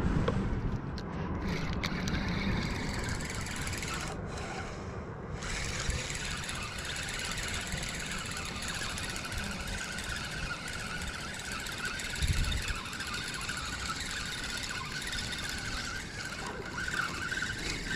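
Steady outdoor background noise, with a brief low thump about twelve seconds in.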